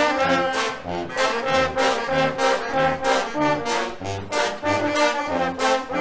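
Guggenmusik brass band playing loud, brassy carnival music: trombones, trumpets, sousaphones and saxophones over a steady percussion beat.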